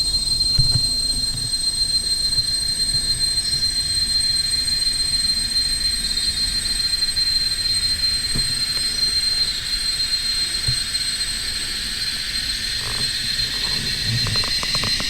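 Forest insects buzzing in a steady, shrill drone, with a high hiss and two held high whines over it.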